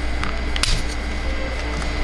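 Background music with two sharp clicks, the louder one about half a second in, typical of plastic toy parts being snapped or moved.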